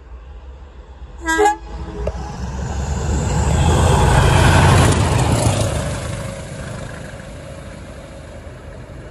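Pair of Class 20 diesel locomotives running light: a short horn blast a little over a second in, then their engines and wheels approaching and passing close by, loudest about halfway through and fading after.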